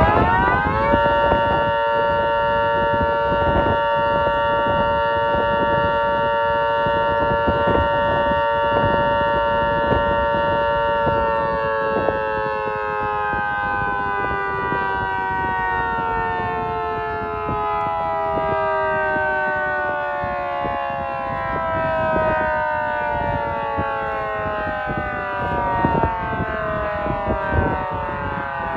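Computer-made siren tone imitating a Model 2T outdoor warning siren, played through an ATW H-508 speaker. The two-tone wail finishes winding up about a second in, holds a steady pitch for about ten seconds, then slowly winds down. Wind gusts hit the microphone throughout.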